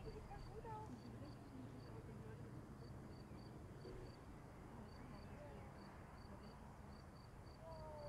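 Faint outdoor ambience: an insect chirps in short, evenly spaced high pulses, with a few brief whistled notes and a low steady rumble underneath.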